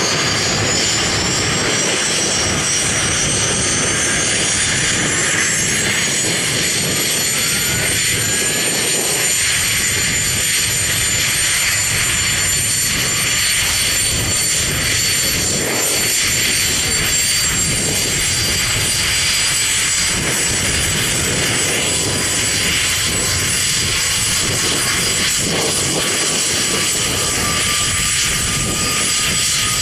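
Boeing CH-47 Chinook tandem-rotor helicopter running loud. The high whine of its twin turbine engines climbs in pitch over the first six seconds or so, then holds steady over a continuous rushing rotor noise.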